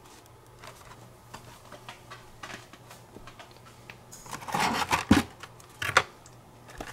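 Blister-carded Hot Wheels cars being handled and pulled out of a cardboard case: faint light clicks at first, then a burst of plastic and card rustling and clacking about four seconds in, with a sharp click just after five seconds and another a second later.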